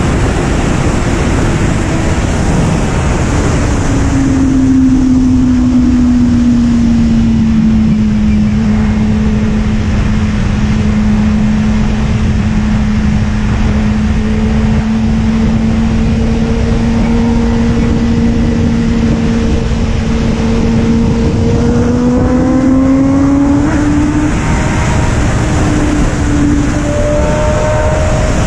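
Motorcycle engine running at cruising speed under heavy wind noise on the microphone. Its note drops a little about four seconds in, holds steady for a long stretch, then rises as the bike accelerates near the end.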